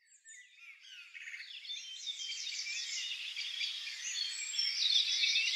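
Many birds singing at once, a chorus of overlapping high chirps and trills, fading in from silence.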